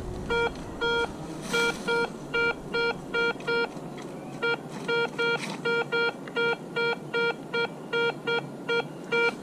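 Garrett ACE 250 metal detector beeping as its coil is swept over the ground: a string of about two dozen short beeps, all at the same pitch, two or three a second, with a brief pause about four seconds in.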